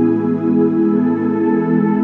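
Slow instrumental gospel worship music of held, sustained chords, the bass note shifting about one and a half seconds in.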